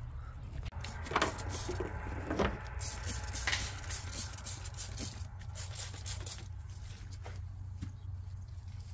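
Hand-held trigger spray bottle squirting all-purpose cleaner onto the engine bay: several short hissing sprays, the clearest about a second apart near the start, with fainter ones later, over a steady low hum.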